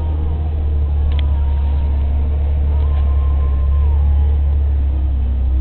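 Jeep Wrangler TJ running at low speed, its engine and drivetrain making a steady low drone with faint whining tones that rise and fall.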